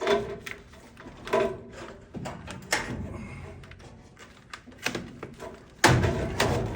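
A furnace air filter being worked out of its slot in the sheet-metal furnace cabinet: scattered clicks, knocks and scraping, with the loudest rough scrape and thump near the end.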